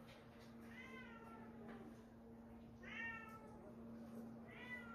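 A cat meowing three times: short, high meows that rise slightly and then fall in pitch, about a second in, around three seconds in and near the end.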